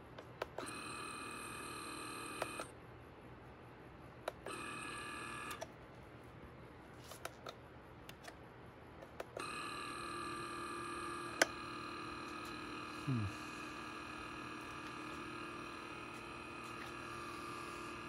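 Water pump of an Aicok AC-507K single-serve pod coffee maker running with a steady multi-tone hum. It starts and stops twice in short runs, then runs continuously from about nine seconds in as the machine brews, with a few light clicks between runs.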